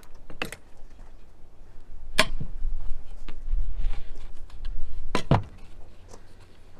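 A few sharp knocks and clacks, three of them standing out about half a second, two seconds and five seconds in, from tools and lumber being handled while a pocket-hole jig is set up for drilling, over a low rumble.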